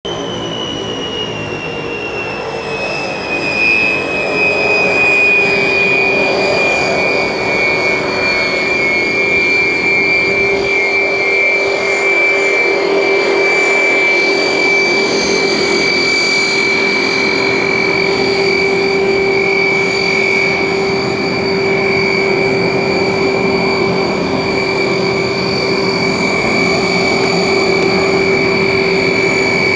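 Hawker Siddeley HS 748's Rolls-Royce Dart turboprop engines running as the airliner taxis: an ear-splitting, steady high whine over a lower drone. The whine falls a little in pitch over the first few seconds and then holds steady.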